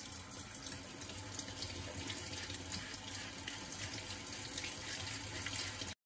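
Kitchen tap running steadily into a sink, the stream splashing over an alabaster figurine held under it while it is wet-polished with fine sandpaper. The sound stops abruptly just before the end.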